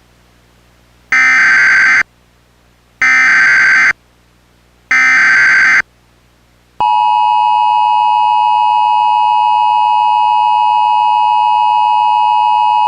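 Emergency Alert System SAME header: three short bursts of screeching data tones, each about a second long, with gaps between them. About seven seconds in, the steady two-tone EAS attention signal starts, the tone that opens an emergency alert message.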